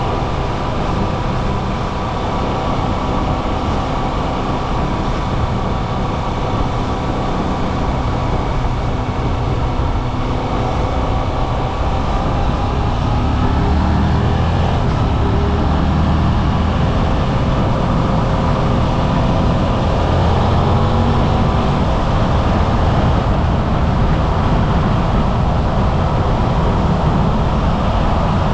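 Suzuki V-Strom 800RE's 776 cc parallel-twin engine running on the move, heard from the cockpit with wind noise. Its pitch shifts here and there, and it gets louder about halfway through.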